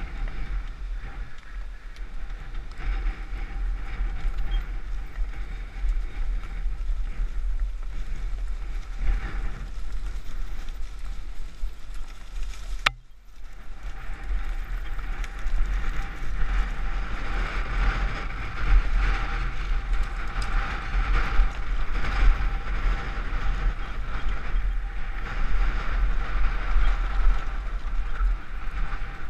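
Mountain bike descending a dirt trail: tyres rolling over rough ground and the bike rattling, with wind buffeting the camera's microphone as a steady low rumble. The sound cuts out abruptly for a moment about 13 seconds in, then carries on.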